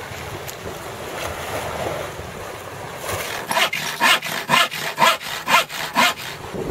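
Handsaw cutting across a strip of wood, with steady back-and-forth strokes about two a second that begin about halfway through.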